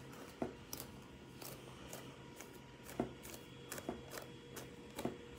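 Faint, irregular small clicks and rustles of a plastic comb being handled.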